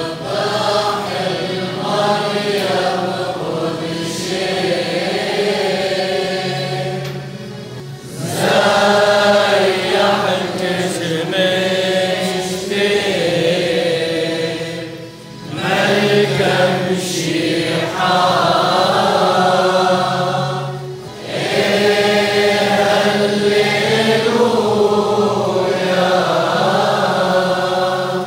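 Group of voices chanting a church hymn, sung in long phrases with short pauses between them.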